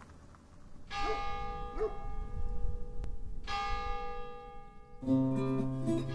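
A church bell struck twice, about two and a half seconds apart, each stroke ringing on and slowly dying away. Acoustic guitar music starts about five seconds in.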